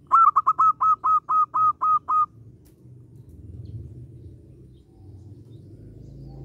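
Zebra dove calling: a quick run of about ten short, clear notes, each dipping in pitch at its end, lasting about two seconds and then stopping. A low, steady background rumble continues under it.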